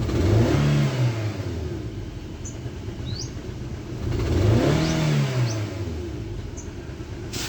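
Suzuki Swift double-overhead-cam engine revved twice from idle, the pitch rising and falling each time. It is being checked for a misfire from a faulty ignition coil.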